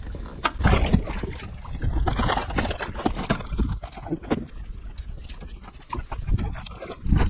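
Canoe being paddled: an irregular run of dull knocks and splashes as the paddle works the water and bumps the canoe hull, over a low rumble of wind on the microphone.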